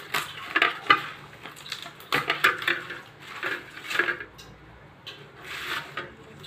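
Husks being torn and stripped off an ear of sweet corn by hand: irregular dry rustling and tearing, the loose husks brushing against a steel plate.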